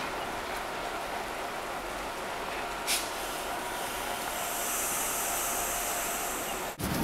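Freight train of container wagons rolling along the track: a steady noise of wheels on rails with faint squealing tones, and a high hiss joining about four and a half seconds in.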